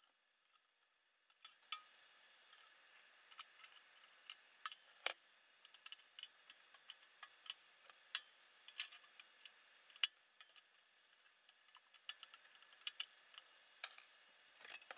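Faint, irregular sharp clicks and taps of metal being handled: locking C-clamp pliers being set on a sheet-metal fuel tank, a few clicks a second starting about a second in.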